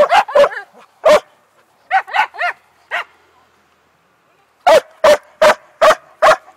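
Elkhound barking: a few sharp single barks, some higher yelping yips about two seconds in, then after a short pause a quick, even run of barks, about two and a half a second, near the end.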